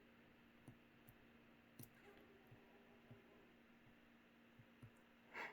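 Near silence: room tone with a low hum and a few faint, scattered clicks, and a brief soft sound near the end.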